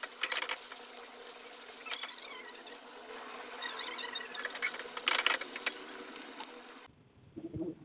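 Dried mola fish sizzling as it fries in oil in a pan, with a metal spatula scraping and clacking against the pan several times, most sharply about five seconds in. The sizzle cuts off suddenly shortly before the end.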